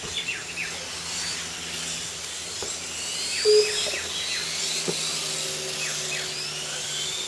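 Several 1/8-scale Kyosho Hang-On Racer electric RC motorcycles racing. Their motors whine high, rising and falling in pitch and overlapping as the bikes speed up and slow down. A short, louder tone sounds about halfway through.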